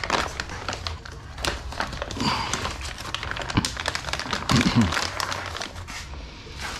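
Plastic bag crinkling and rustling as a boxed replacement AC compressor is unwrapped and pulled out of it, in a quick run of irregular crackles.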